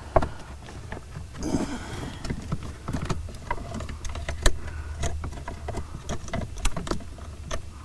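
Hands handling a wiring harness and its plastic connectors: irregular small clicks and rustles of cable and plastic, over a low steady hum.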